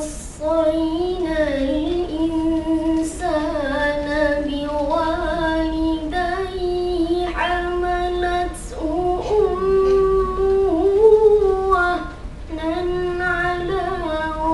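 A boy reciting the Quran in melodic tarannum style, holding long, ornamented notes in a high voice, with a short break for breath about three quarters of the way through.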